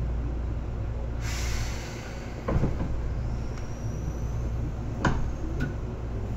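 Interior of a Seibu 2000-series electric train: a steady low rumble, a short hiss of air about a second in, and two sharp clunks about two and a half seconds apart. A faint whine begins to rise right at the end.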